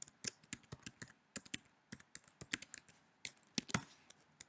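Typing on a computer keyboard: irregular keystrokes, several a second, with a few sharper, louder strokes in the second half and one at the very end.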